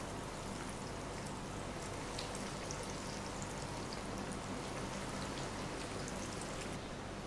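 Breadcrumb-coated chicken cutlets deep-frying in a pan of hot oil: a steady sizzle with scattered crackling pops.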